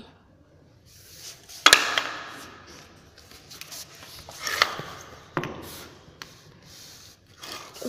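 Handling noises from a hoverboard and its plugged-in charger: a sharp knock about two seconds in, the loudest sound, then rubbing and rustling with several more knocks.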